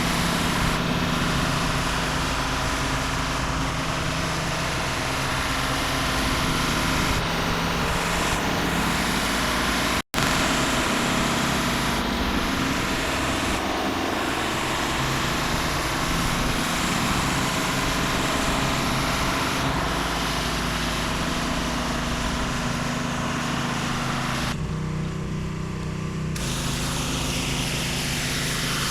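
Small gas engine of a pressure washer running steadily under load, with the hiss of high-pressure water spraying onto concrete.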